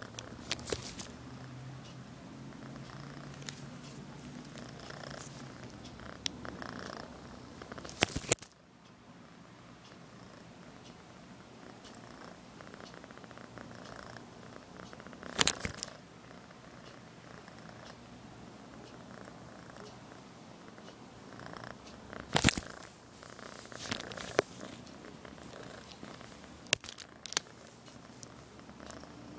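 Kitten purring, with sharp crackles of the bubble-wrap envelope she lies in every few seconds.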